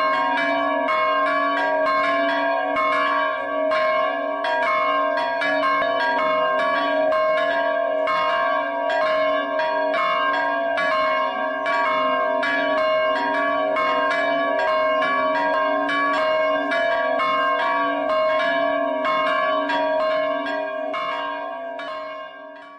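Church bells ringing in a continuous peal of rapid, overlapping strikes, fading out near the end.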